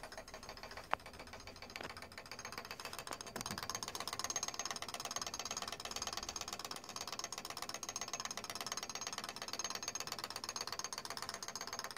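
Striking train of a 1730 Thomas Kefford of Royston grandfather clock's brass movement running: one sharp click about a second in, then from about three seconds in a continuous fast whirring rattle of gears.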